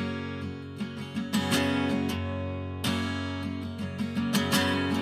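Acoustic guitar strumming the instrumental intro of a pop song, with repeated sharp strums over ringing chords.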